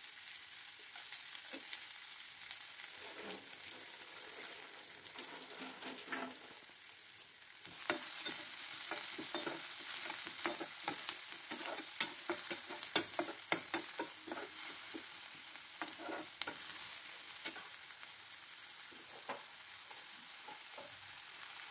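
Chopped onion sizzling in hot oil in a frying pan. A metal spatula scrapes and knocks against the pan as the onion is stirred. The sizzle gets louder about a third of the way in, and the scraping is busiest through the middle.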